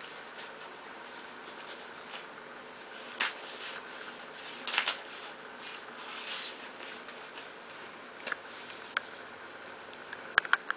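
Belgian Shepherd Groenendael puppy chewing on a piece of cardboard: scattered soft crackles and crunches, with a few sharp clicks near the end.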